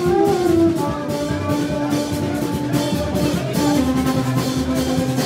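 Band music with a drum kit beat and long held melody notes that step down in pitch a few times.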